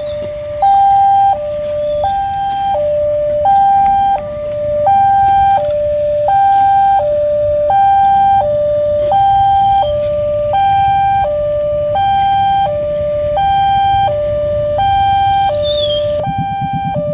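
Railway level-crossing warning alarm: an electronic two-tone signal switching back and forth between a higher and a lower tone about every 0.7 s, sounding while the barrier is down for an approaching train. Near the end a low pulsing rumble comes in under it.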